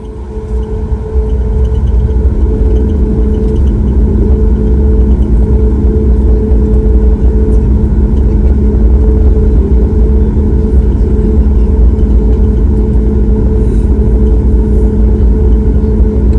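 Airliner cabin noise during taxi: the jet engines and the rolling airframe give a steady low rumble with a constant two-tone hum. It builds up over the first second, then holds steady.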